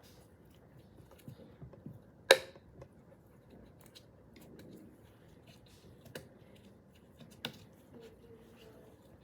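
Sharp clicks and taps from handling dental dam equipment: one loud click about two seconds in, two more near the middle and toward the end, and faint small ticks between.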